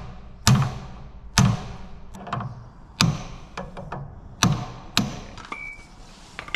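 A hand hammer striking the end of a spanner, about five sharp metal-on-metal blows at uneven spacing with lighter taps between, to jar loose a tight fitting on a mini digger's diesel engine. A short metallic ring sounds near the end.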